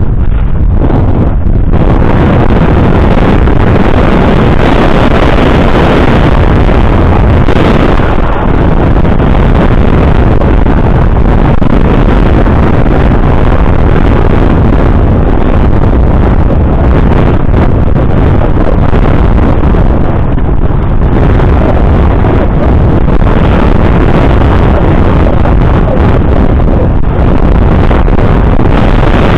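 Heavy wind buffeting the microphone, as from riding a bicycle: a loud, steady low rumble and rush that barely lets up.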